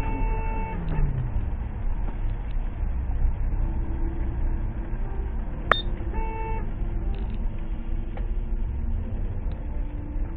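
Steady low road and engine rumble of a car driving on a wet road, heard from inside the car. A held beep-like tone stops about a second in, and a short one sounds about six seconds in.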